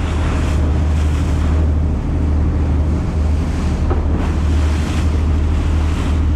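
Wind buffeting the microphone on a fishing boat in stormy weather, with wave noise swelling every second or two over a steady low drone from the boat.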